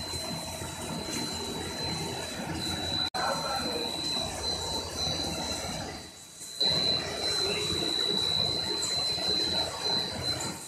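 Machinery of a puff snack processing line running: a steady rushing mechanical noise with a constant high whine. It drops out for an instant about three seconds in and dips briefly around six seconds.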